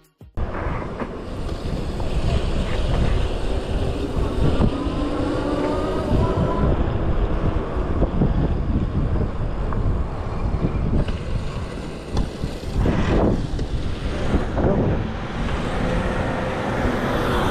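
Wind buffeting the microphone while riding an electric scooter on the street: a heavy, gusty low rumble, with a faint whine rising in pitch about four to six seconds in.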